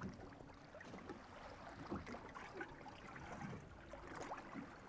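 Faint water lapping and sloshing against a boat's hull, in small uneven splashes.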